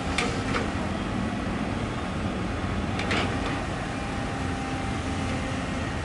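Tracked excavator's diesel engine running steadily, with two pairs of sharp knocks, one at the start and one about three seconds in.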